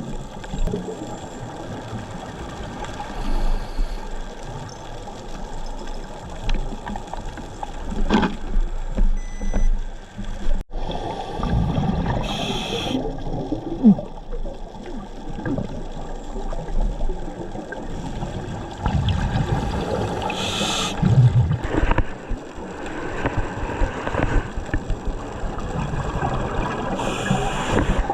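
Underwater sound of a scuba diver breathing through a regulator: a steady gurgling hiss, with a short rush of exhaled bubbles about every seven or eight seconds.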